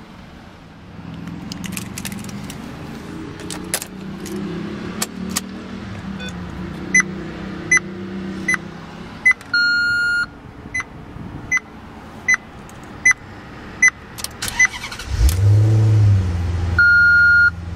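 2009 Maserati Quattroporte S with the ignition on: a dashboard warning ticks about every three-quarters of a second, and a chime sounds twice. About fifteen seconds in, the V8 cranks and catches, revs briefly on start-up, then settles into a steady low idle.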